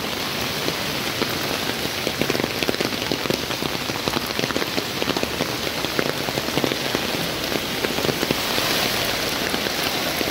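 Heavy rain falling steadily onto standing floodwater: a dense, even hiss of splashing drops.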